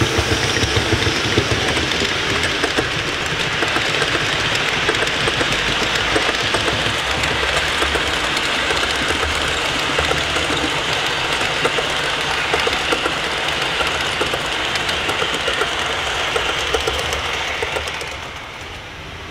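Model trains running past on the layout track: a steady rolling rumble with a fast patter of small clicks from the wheels on the rails, dropping away about 18 seconds in as the last cars go by.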